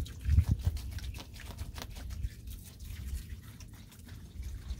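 White vinegar pouring from a plastic gallon jug into a plastic tub, with irregular splashing and crackling of the handled plastic, over a low wind rumble on the microphone.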